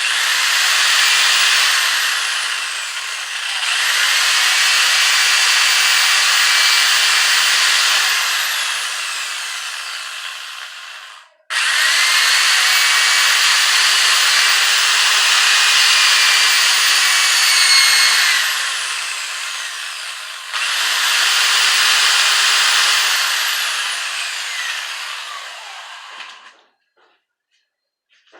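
Handheld electric power tool running at high speed in three long bursts, each spinning up quickly to a steady pitch, then slowing and fading away. It stops a couple of seconds before the end.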